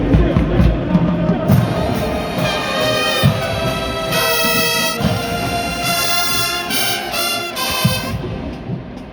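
Marching band brass section, trumpets and trombones, playing loud held chords over drums, breaking off about eight seconds in while the drums keep going.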